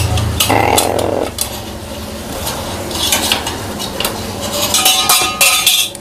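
A crow's beak clicking, scraping and rattling against a plastic clip and the wire bars of its cage, with scattered sharp clicks that grow busier in the second half. A short harsh rasp comes about half a second in.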